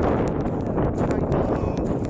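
Wind buffeting the camera microphone with a steady, rumbling rush, and faint irregular clicks throughout.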